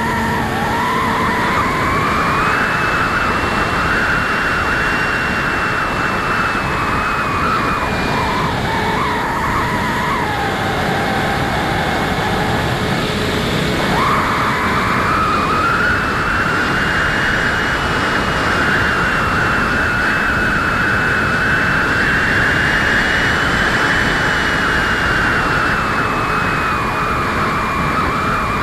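A Bixler foam RC plane in flight, heard from on board: the electric motor and propeller whine steadily, the pitch slowly rising and falling, under heavy rushing wind noise on the plane-mounted microphone.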